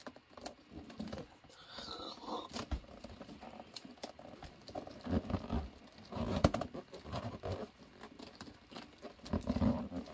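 Hands twisting and tying off the stretched neck of a stuffed clear bubble balloon: irregular rubbing and crinkling of the balloon, with a short hiss about two seconds in.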